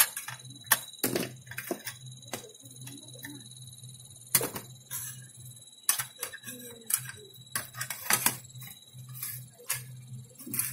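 Irregular sharp clicks and knocks of an LCD monitor's circuit board and its sheet-metal bracket being handled and worked with a screwdriver. A low hum that pulses a few times a second and a thin steady high whine run underneath.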